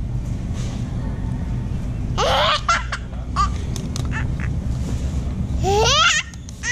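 A small child squealing with laughter, two rising cries, one about two seconds in and one near the end, over a steady low rumble.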